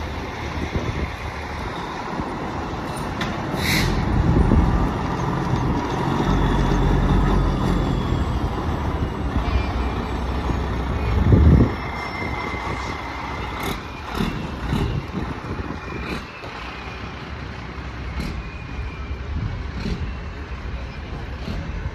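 Fire trucks' diesel engines running as they roll slowly past one after another, with a short hiss of air brakes about four seconds in. The engine noise swells to its loudest about halfway through, then eases off as the last truck goes by.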